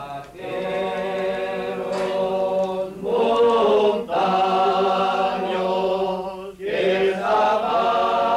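A group of men singing a traditional Gascon song a cappella, in several parts on long held notes, with short breaks for breath between phrases.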